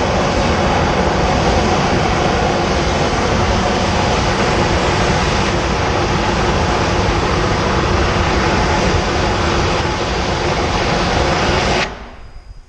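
Steam locomotive's boiler blowdown: a loud, steady hiss of steam blasting out the side of the engine, which cuts off suddenly near the end.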